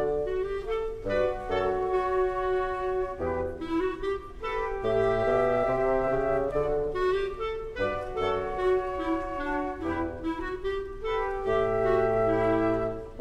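Youth symphony orchestra playing an orchestral arrangement of a Brazilian popular song. Woodwinds, among them flute, oboe and bassoon, play melodic lines over strings, and low bass notes come in at intervals.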